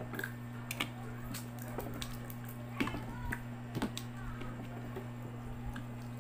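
Close-up eating sounds of cooked crab: meat and shell pieces pulled apart by hand and chewed, giving scattered small clicks and wet squishes, over a steady low hum.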